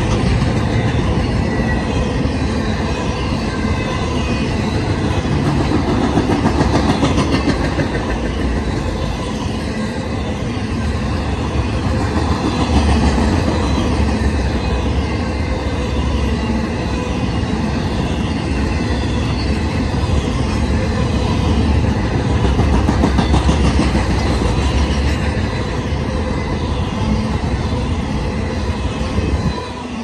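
An intermodal freight train's flatcars, loaded with truck trailers, rolling past at speed: a steady rumble and clatter of steel wheels on rail. It drops away abruptly near the end as the last car passes.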